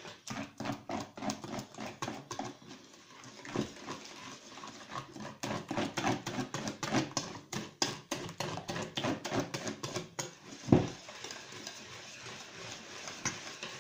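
Wire whisk beating crêpe batter in a stainless steel bowl: quick rhythmic clicking and scraping of the wires against the metal, about four strokes a second, with one heavier knock about eleven seconds in.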